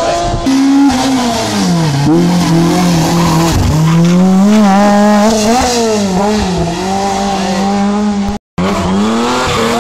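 Rally car engine revving hard, its pitch climbing and dropping again and again as it accelerates, lifts and changes gear through a tight hairpin. The sound cuts out for a split second near the end.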